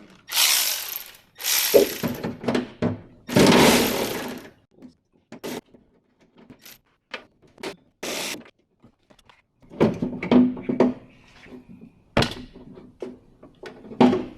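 Hand tools and parts working inside a Toyota Hilux door as bolts and clips are undone and a part is worked free: three rasping bursts about a second long in the first few seconds, then scattered clicks and knocks, with a louder cluster of knocks later.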